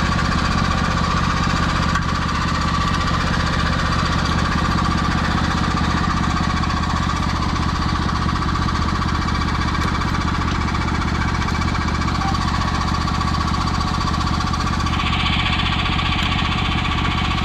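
Tractor engine running steadily at a constant speed, with a clattering, knocking character. A higher hiss joins in near the end.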